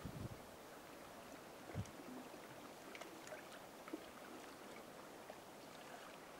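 Faint outdoor background hiss, with a soft low thump at the start and another just under two seconds in, and a few faint ticks.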